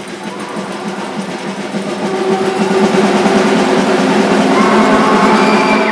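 Spectator noise in a school gym swelling about two seconds in and holding loud, with a steady low drone under it, then dropping off at the end.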